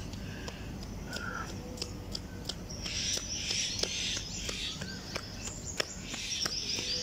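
Outdoor background with a bird call and insect-like chirping over a steady low rumble, broken by scattered short clicks.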